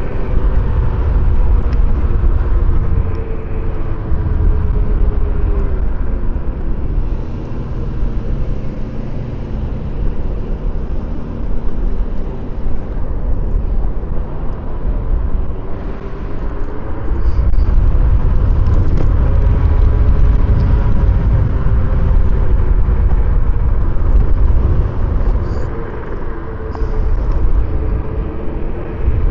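Yume Predator 72-volt electric scooter riding along, with heavy wind rumble on the microphone. The motor's whine rises and falls in pitch as the speed changes, and it is loudest through a stretch past the middle.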